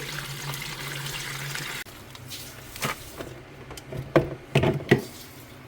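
Water running onto iced-up refrigerator parts to melt the ice. It cuts off abruptly about two seconds in and is followed by a few sharp knocks and clicks of parts being handled.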